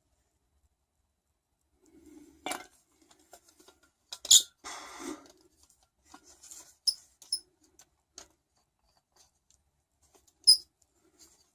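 Scattered small clicks, clinks and knocks of metal parts and tools being handled on a workbench, with a brief scrape about four to five seconds in and a sharp click near the end.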